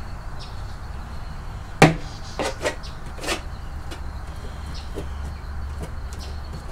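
A knife knocking and tapping while beef tallow is scooped from a can and spread onto butcher paper: a few sharp knocks, the loudest about two seconds in, over a steady low hum.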